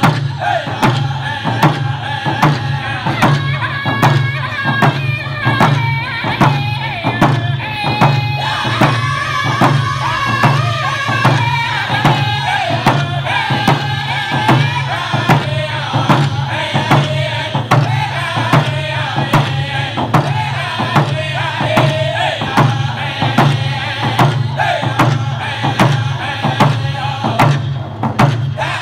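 A group of men singing a hand drum song together while beating round frame hand drums in a steady, even beat.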